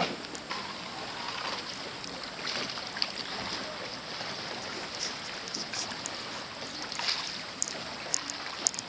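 Kayak paddle strokes splashing and water lapping in choppy bay water over a steady hiss, with a few short sharp ticks near the end.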